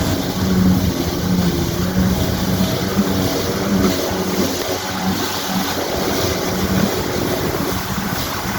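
Jet ski engine running under way, a steady hum whose low note wavers and breaks up from about halfway through, over wind and water noise.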